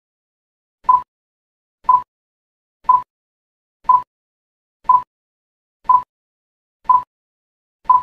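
Countdown timer beeps: eight short, identical mid-pitched electronic beeps, one a second, marking each second of a clapperboard countdown.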